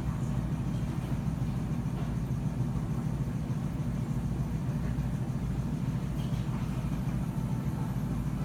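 Steady low rumble of room background noise with no voices.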